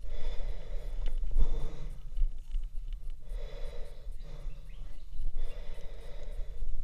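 A climber breathing hard in heavy puffs about every second and a half while scrambling up a steep rock section, close to the camera's microphone. Under it runs a low rumble with a few knocks from the handheld camera being handled.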